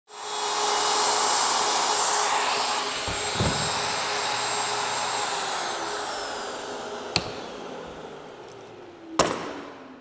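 Router running as it cuts a notch in a plywood drawer bottom through a template, then switched off, its motor winding down with falling pitch over several seconds. A thump comes shortly after the cut, and two sharp knocks come near the end.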